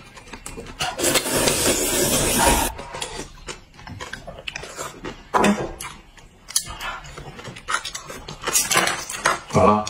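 A long, loud slurp of sweet potato noodles lasting about two seconds starting about a second in, followed by chewing and scattered light clicks of chopsticks against bowls.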